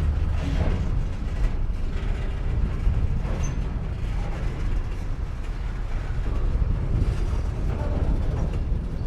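Empty coal train of open hopper cars: a steady low rumble, with no loud coupler bang.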